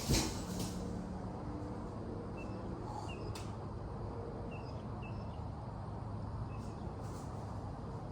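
A single sharp thump right at the start, then steady low outdoor background hum with faint, short high chirps scattered through.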